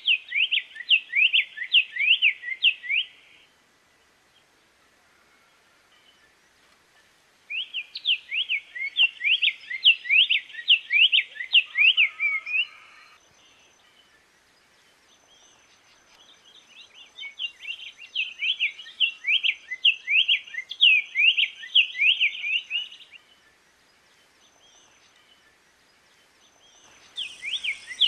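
Black-faced tanager (sanhaço-de-coleira) singing: phrases of quick, sweeping warbled notes, each lasting several seconds, with pauses of a few seconds between them.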